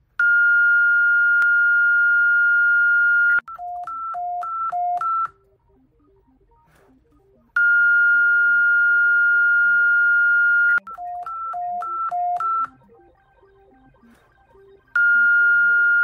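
Electronic emergency-alert alarm tones in a repeating cycle: a long, steady high beep of about three seconds, then a quick run of alternating high and low beeps that grows louder, then a short lull with faint low notes. The cycle runs twice and starts a third time near the end.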